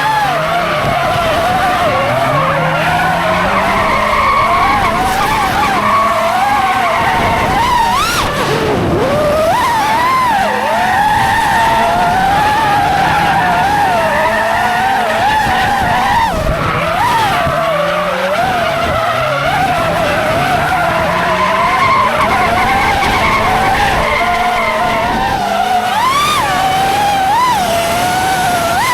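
Drifting cars' tyres squealing in a long, wavering screech, over engines revving up again and again.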